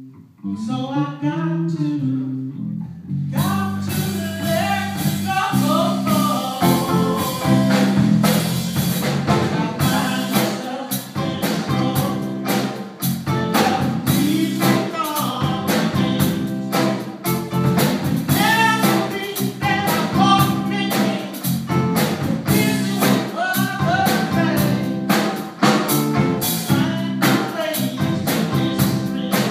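Live blues band playing a slow blues with singing, electric guitar, bass and drum kit. A lone bending melodic line opens, and the full band with drums comes in about three seconds in.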